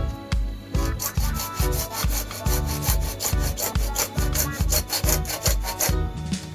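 Background music with a steady beat and bass line, over quick rasping strokes of a pipe being cut as holes are made along it. The strokes start about a second in and stop near the end.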